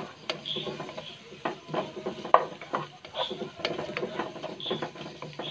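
A wooden spatula stirring sliced onions in a nonstick pan, giving irregular scrapes and knocks against the pan as the onions sauté, with the loudest knock a little after the middle.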